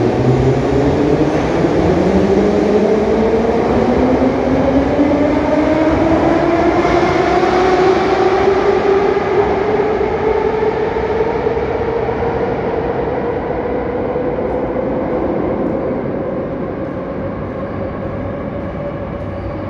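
81-717/714 'Nomernoy' metro train pulling out of the station. Its traction motors whine, several tones rising steadily in pitch as it accelerates away, over a rumble that slowly fades.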